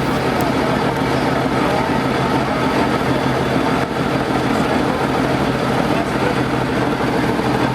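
Engine running steadily at an even speed, loud and unchanging.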